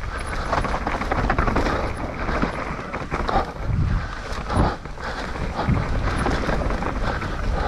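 Mountain bike ridden fast down a rough dirt trail: tyre noise on dirt, with irregular knocks, thumps and rattles as it hits bumps.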